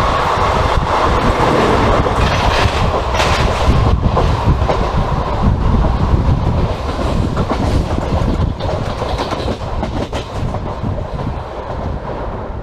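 Passenger train running on the rails, heard from on board: a steady wheel rumble with clickety-clack over the rail joints, growing quieter near the end.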